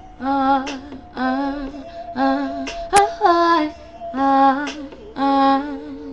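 A woman singing short wordless R&B vocal phrases, about six in all, each under a second, over a backing track of held chords. A sharp click comes about three seconds in.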